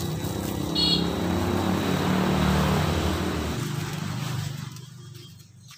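A motor vehicle's engine passing close by, getting louder over the first second or so and then fading away over the last couple of seconds.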